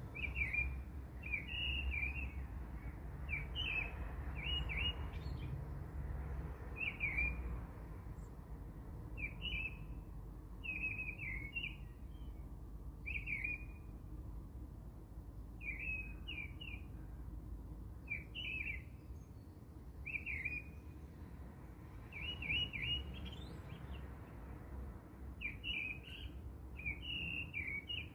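A small bird chirping over and over, short quick chirps about once a second, over a low steady rumble.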